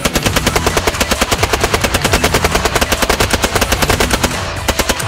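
9mm Sten submachine guns firing on full automatic: a long run of rapid shots, about nine or ten a second, that stops after about four seconds, then a short burst of a few more shots near the end.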